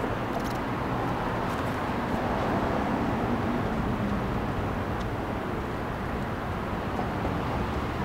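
Steady low outdoor background rumble, with a few faint clicks.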